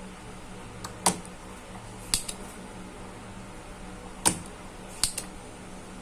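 Six or so sharp clicks and taps, single or in quick pairs, from tools and parts being handled on a repair bench, over a faint steady hum.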